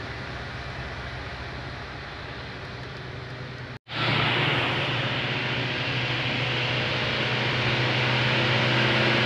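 Motor vehicle engine running with steady road noise. About four seconds in the sound cuts off abruptly and comes back louder, with a brighter hiss of engine and road noise.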